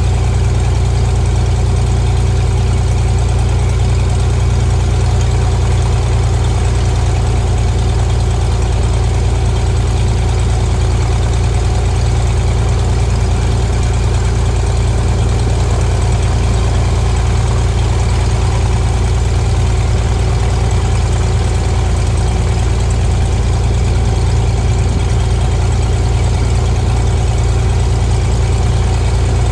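Piston engine and propeller of a single-engine Cessna RG airplane running steadily, a constant low drone with no change in power.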